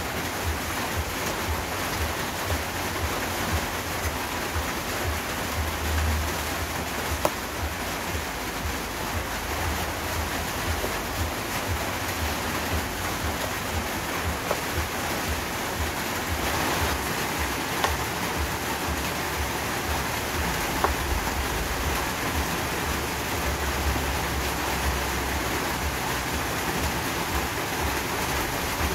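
Kitchen knife slicing eggplant on a plastic cutting board, a few sharp taps of the blade on the board, over a steady rushing hiss.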